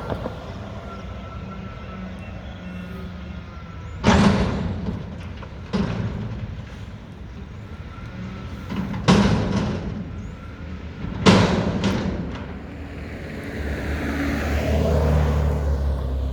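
Diesel engine of a Mack garbage truck with a McNeilus front-loader body running, with four loud bangs as the steel container is slammed against the truck while being dumped. The engine revs up near the end.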